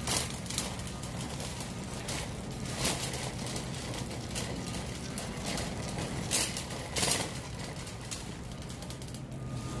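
Metal shopping cart being pushed across a concrete store floor: a steady rolling rattle of the wheels and wire basket, with a few sharp clanks.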